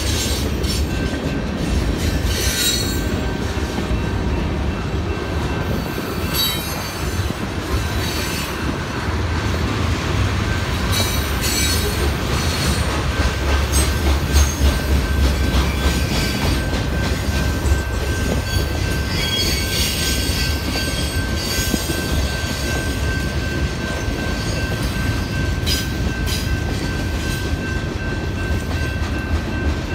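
Freight train rolling past: a steady low rumble of wheels on rail with scattered clanks and clicks as the cars pass, and a thin, high, steady wheel squeal over it.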